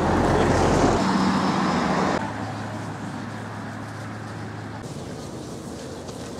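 Road traffic: a motor vehicle passing close by, loudest in the first two seconds, then the noise drops off abruptly to quieter steady traffic and outdoor background with a low hum.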